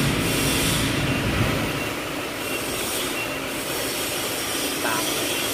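Toyokoki press brake running: a steady mechanical noise with hiss, easing slightly about two seconds in, with a brief squeal near the end.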